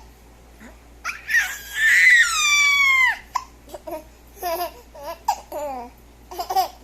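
Baby squealing: one long high-pitched squeal about a second in that slides down at its end, followed by a string of short giggles and babbling sounds.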